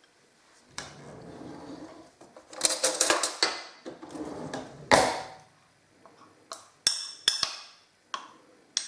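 Glass bowls clinking and knocking together as honey is poured from one into another, with a cluster of clatter and one loud knock about five seconds in. Near the end a metal spoon scraping the small glass bowl gives a few sharp clicks.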